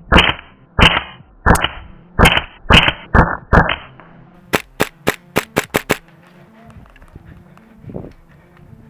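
Airsoft guns firing: six loud, evenly spaced shots over about four seconds, each with a short rattly tail, then a quicker string of about eight sharper snaps.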